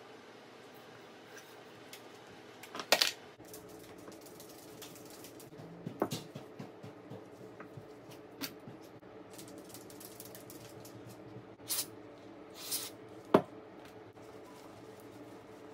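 Scattered clicks and light knocks of small hard parts and hand tools being picked up and set down on a workbench, about half a dozen sharp ones with the loudest near the end, over a faint steady hum.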